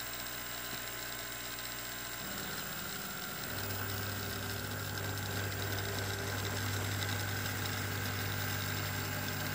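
Motors of a table-tennis ball launcher robot running with a steady, machine-like hum that changes pitch and grows louder about two and three and a half seconds in, as the launcher's head pivots upward.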